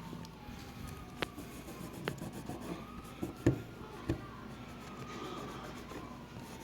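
Faint emergency-vehicle siren wailing slowly down, up and down again, with a few sharp clicks and knocks, the loudest about three and a half seconds in.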